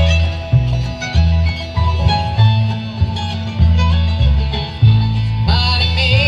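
Bluegrass band playing an instrumental passage: banjo and guitar picking over bass notes about twice a second. A higher, wavering melody line comes in near the end.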